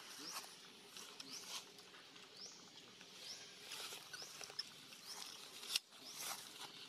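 Baby long-tailed macaque giving short, high rising squeaks, roughly one a second: the whimpering of a frightened infant. A single sharp click near the end.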